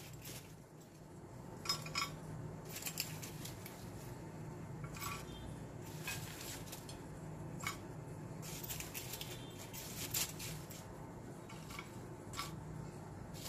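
Stainless steel kitchen tongs clinking against a glass serving dish as pieces of crisp fried chicken are set down in it: a dozen or so light, irregular clicks and clatters, over a low steady hum.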